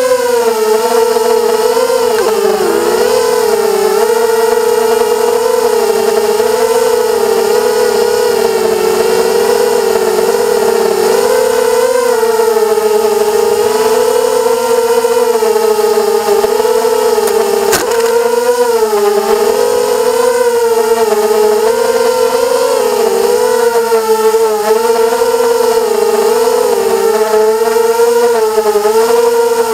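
Motors and propellers of an FPV racing quadcopter, heard from on board, whining steadily with the pitch rising and falling as the throttle changes. A single sharp click sounds a little past halfway.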